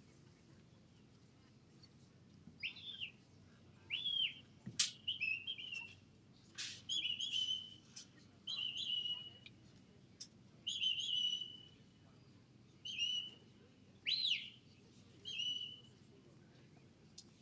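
Sheepdog handler's whistle commands to a working dog: a string of about a dozen short, high whistles, some quick sharp upward flicks, others held briefly or warbled, with short gaps between them.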